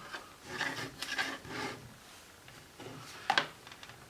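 Handling noise of a trim router being worked in its clear plastic base: rubbing and rustling of the body and cord, small knocks, and one sharp click a little over three seconds in.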